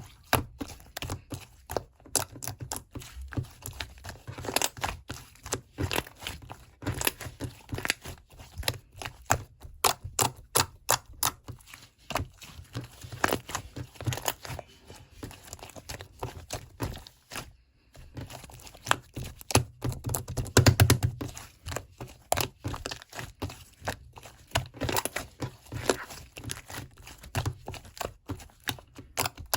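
Dense, irregular crinkling and crackling from something being handled, a quick run of small clicks and pops. It stops briefly just past the middle, then goes on with a louder patch a few seconds later.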